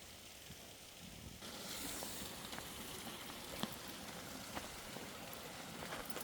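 Faint steady rushing hiss of a nearby creek, brightening about a second and a half in, with light footsteps crunching on the trail about once a second.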